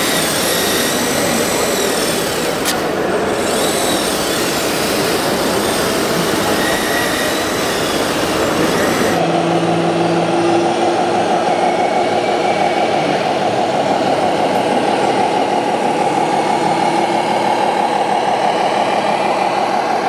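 Radio-controlled model vehicles running amid exhibition-hall noise. About nine seconds in the sound cuts to a steadier engine-like hum from a model truck.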